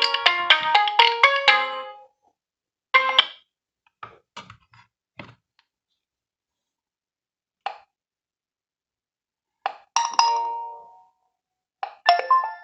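Nokia 1.3 smartphone playing a ringtone through its loudspeaker: a quick melody of bright notes that stops about two seconds in. It is followed by a string of short separate tones and chimes, one every second or two, one of them ringing on for about a second.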